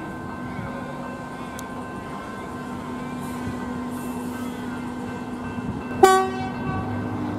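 Electric suburban train (an X'Trapolis 100 set) giving a steady electrical hum at the platform, then one short, loud horn toot about six seconds in.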